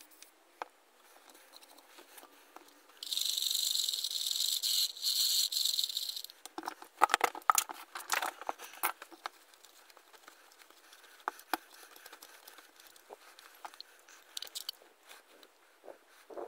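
An aerosol can spraying in one steady hiss of about three seconds, followed by a clatter of knocks and clicks as a metal hand drill is set down and handled on a workbench.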